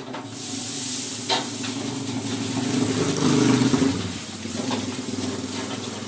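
Mie goreng (fried noodles) sizzling loudly in a hot pan: a steady hiss that flares up just after the start, over a low steady hum, with a few light clicks.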